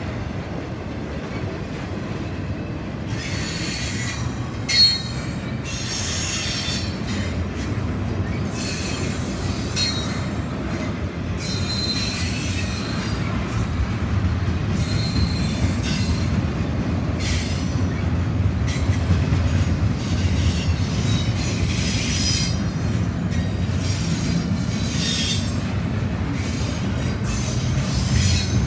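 Norfolk Southern intermodal freight cars, trailers on flatcars and double-stack container cars, rolling past with a steady low rumble of wheels on rail. Short, high wheel squeals come and go, and there is a single sharp clank about five seconds in.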